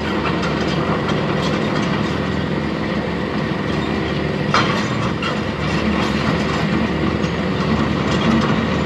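A heavy vehicle running steadily close by, its engine drone mixed with rattling, with one brief knock about halfway through.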